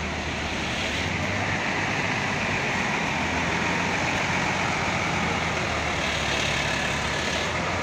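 Hino coach's diesel engine running as the bus pulls slowly away, a steady low hum under an even hiss of rain and tyres on wet pavement.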